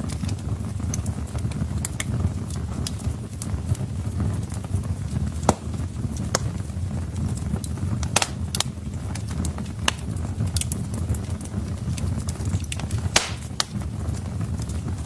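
Wood fire burning in a fireplace: a steady low rumble of the flames with irregular crackles and sharp pops from the logs, a few of them louder than the rest.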